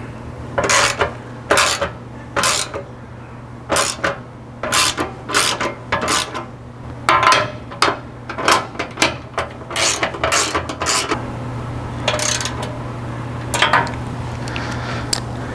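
Socket ratchet on a long extension clicking in short runs as steel skid plate bolts are driven in, over a steady low hum.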